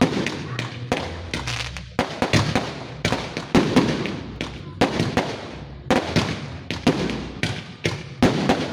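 Fireworks going off in quick succession: a long run of sharp bangs, about two to three a second, each with a short crackling tail.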